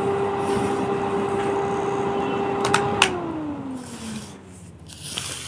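A small electric motor whining steadily. About three seconds in come two sharp clicks, and the whine falls in pitch as the motor winds down.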